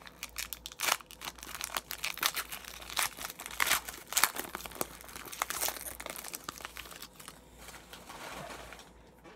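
Foil wrapper of an Upper Deck hockey card pack being crinkled and torn open by hand, a dense run of sharp crackles that thins out and dies down near the end as the cards come out.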